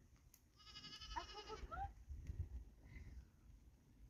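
Faint livestock bleating: one quavering bleat about a second long, then a few shorter calls, over a low rumble.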